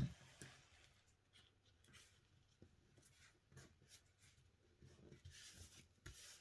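Faint paper handling: a glued paper card being pressed and rubbed down onto a backing board, with light taps and rustle, after a short knock right at the start.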